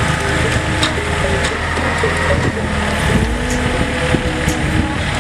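Excavator's Yanmar diesel engine running steadily under load while its hydraulic earth auger bores into the road, with a few scattered knocks.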